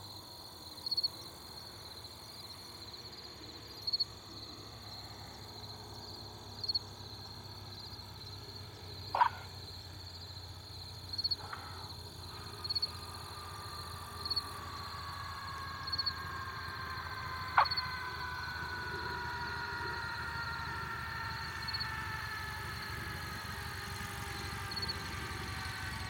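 Cessna 150's four-cylinder Continental engine and propeller drone, slowly growing louder as the plane lands and rolls past, its tone falling in pitch through the second half. Over it, repeated short chirping calls of a small animal ring out every one to three seconds and are the loudest sounds.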